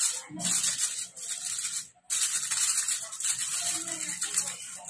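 Aluminium foil crinkling and rustling as it is folded and pressed down over a loaf pan, in irregular bursts with a brief pause about two seconds in.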